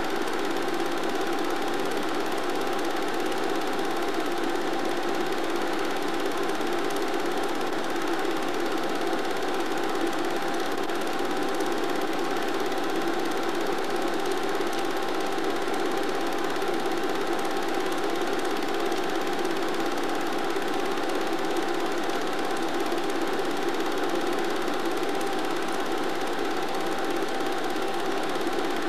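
Steady mechanical whirring of a small machine running at a constant speed, with an unchanging pitch and level throughout.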